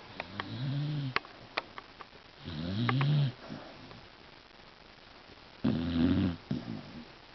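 Sleeping beagle snoring: three slow snores a few seconds apart, each a low rumbling drone that rises and falls with a raspy hiss on top. The second and third snores are louder than the first.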